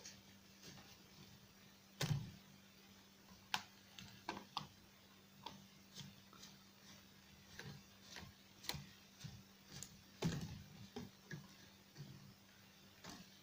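Clicks, taps and light plastic knocks from a compact camera being screwed onto the bolt of a homemade bottle-cap mount on a PVC pipe, with louder knocks about two seconds in and again about ten seconds in. A faint steady hum lies underneath.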